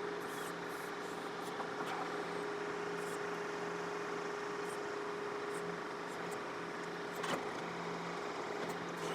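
John Deere 4052R compact tractor's diesel engine running steadily, driving the 485A backhoe, with a constant whine over the engine hum; a brief knock about seven seconds in.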